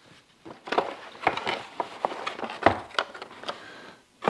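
Cardboard box being opened and handled, with paper rustling and light irregular knocks and clicks of the box and its contents.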